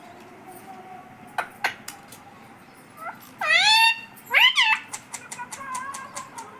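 Pet parrot giving two loud calls that bend in pitch, about three and a half and four and a half seconds in. A couple of sharp clicks come before them and a run of light clicks after.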